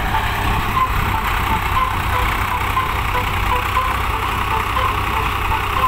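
Swaraj 744 DT tractor's diesel engine running steadily.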